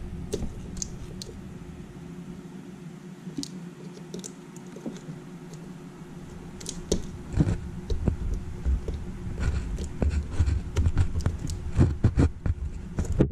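Clicks and scrapes of hands working plastic parts and wire plug connectors on a 12-volt ride-on toy truck's motor wiring, with knocks and bumps growing more frequent after about seven seconds.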